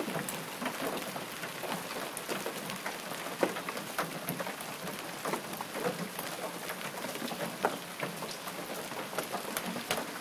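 Hailstorm: a dense, steady clatter of hailstones striking roofs and the ground, with sharper single hits standing out now and then.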